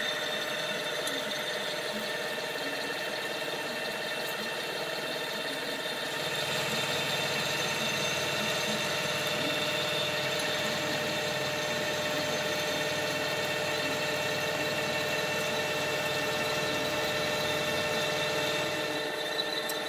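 Vertical milling machine running steadily, its spindle cutting an injector bore into a boss on a cast aluminium intake manifold. The sound gets a little louder about six seconds in.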